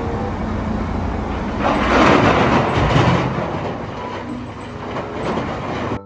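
Large mining wheel loader's diesel engine running as it loads a dump truck. It grows louder and noisier for about a second, about two seconds in.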